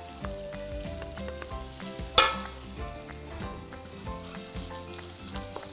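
Diced lamb and sliced onions sizzling in rendered lamb tail fat in a wok, stirred with a wooden spoon, with one sharp knock about two seconds in.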